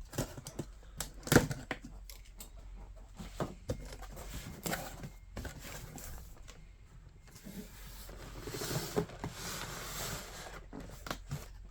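A cardboard Hot Wheels shipping case being ripped open and handled: scattered knocks, clicks and rustles, with a longer tearing, scraping noise from about eight to eleven seconds in.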